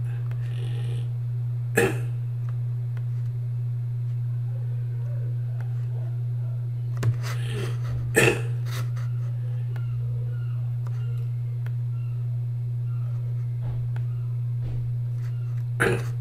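A steady low electrical hum, broken by a few short, sharp noises about 2, 7 and 8 seconds in.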